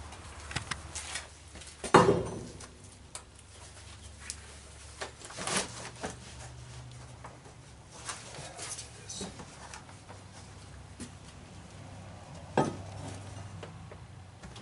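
Handling noises as a stiff leather sheet is fitted onto a cardboard box target: scattered knocks and rustles, the loudest about two seconds in, over a faint low hum.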